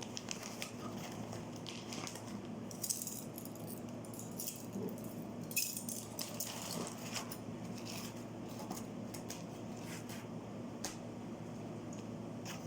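Light metallic clinks and ticks of small jewelry being handled, over a steady low hum.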